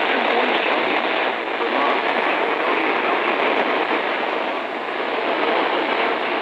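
Steady static hiss from a NOAA weather radio receiver with weak reception, with no broadcast voice coming through.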